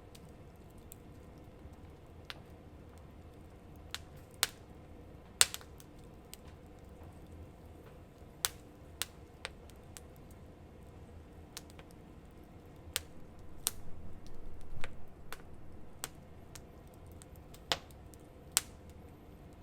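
Wood fire crackling: sharp pops at irregular intervals, the loudest about five seconds in, with a denser run of crackling a little past the middle.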